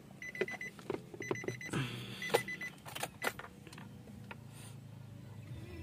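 Short, high electronic beeps repeating about once a second, stopping about three seconds in, among scattered clicks and knocks of handling.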